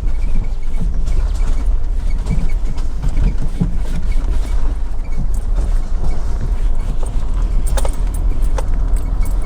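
Vehicle driving slowly on a rough dirt road, heard from inside the cabin: a steady low rumble of engine and tyres, with loose items jangling and a few sharp rattles late on.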